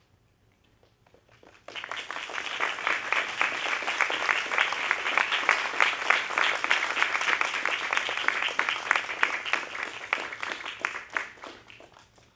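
Audience applauding: a crowd's clapping starts abruptly about two seconds in, holds steady, then thins out and dies away near the end.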